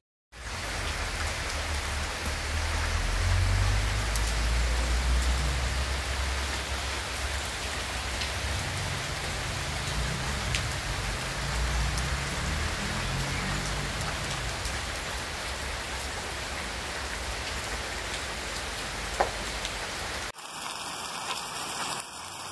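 Heavy rain pelting a paved yard and puddles: a dense, steady hiss of drops, with a low rumble underneath for the first half or so. About twenty seconds in, it cuts abruptly to lighter rain falling on a wet street.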